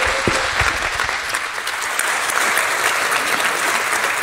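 An audience applauding steadily in a hall, a dense patter of many hands clapping, with a few low thumps in the first moment.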